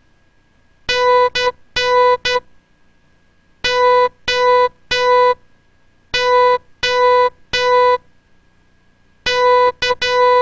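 Morse code practice tone, a buzzy electronic beep keyed into dashes and dots at a slow sending rate. The four letters run dash-dot-dash-dot, three dashes, three dashes, dash-dot-dash, which spells COOK.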